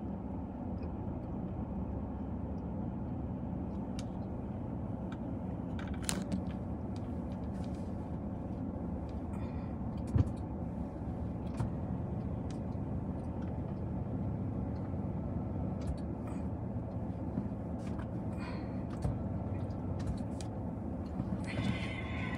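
A car engine idles steadily with a low hum, heard from inside the parked car. A single sharp knock comes about ten seconds in.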